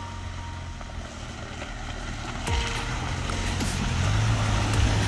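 Fiat Panda 4x4's engine running steadily as the car drives toward the camera, growing louder as it nears. From about two and a half seconds in, its tyres splash through shallow water.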